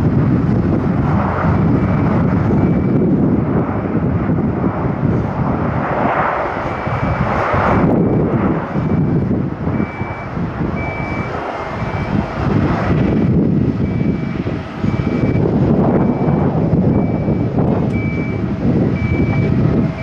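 Jet engines of a Boeing 787 on the runway, a steady rumbling roar mixed with strong gusting wind on the microphone. From about six seconds in, a high beep repeats at even intervals.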